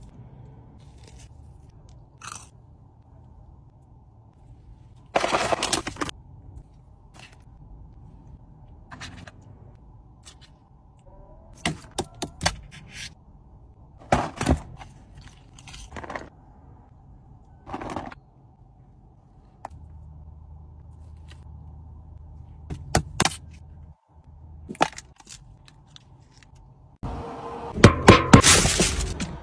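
A series of short crackles, crunches and knocks from food and takeaway packaging being handled, over a low steady hum. Near the end comes the loudest part, a dense stretch of crinkling and scraping as an aluminium foil tray is handled.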